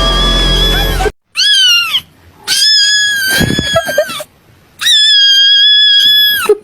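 A cat meowing three times in long, loud, high-pitched drawn-out calls with short gaps between them, the first ending in a downward fall. Background music plays at the start and cuts off about a second in.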